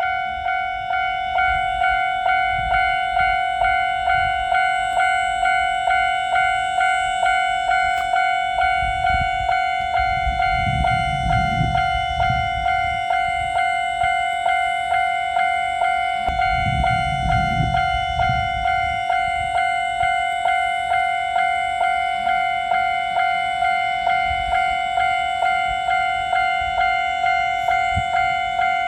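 Japanese level-crossing warning bell ringing its steady electronic clang, about one and a half strikes a second, signalling that a train is coming. A low rumble of a passing train swells under it twice, about ten and seventeen seconds in.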